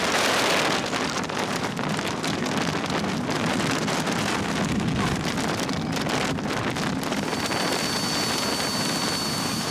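Strong storm wind blowing across the microphone: a loud, steady rushing noise with crackling.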